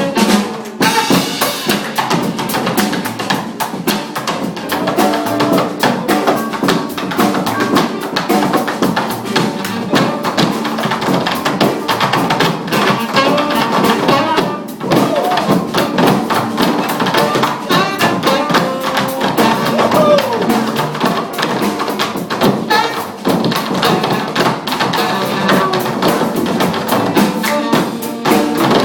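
Funk band playing live, with a busy drum kit keeping a steady beat under instrumental melody lines.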